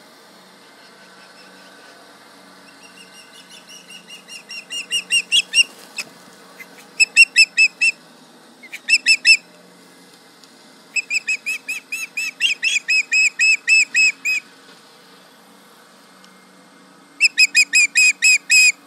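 Ospreys giving alarm calls: rapid series of sharp, whistled chirps, about five a second, in several bursts, the first swelling from soft to loud. The birds are calling at a tractor, whose engine hums faintly underneath.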